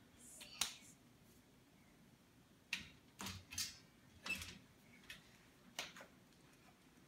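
Faint clicks and knocks, about six spread over several seconds and clustered near the middle, as a white metal baby gate is unlatched and swung open.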